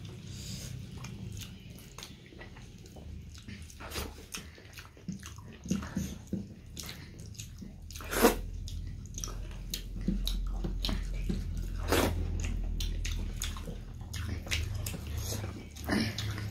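Close-up wet chewing and lip smacks of people eating by hand, with short sharp clicks scattered throughout and fingers squishing dhindo and curry on metal plates, over a steady low hum.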